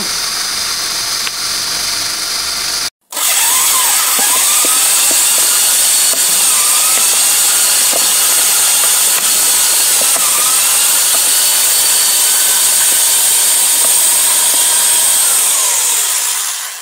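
Electric power drill running continuously at high speed, with a corn cob on the bit. The sound cuts out for a moment about three seconds in, then the drill runs on with its pitch wavering up and down.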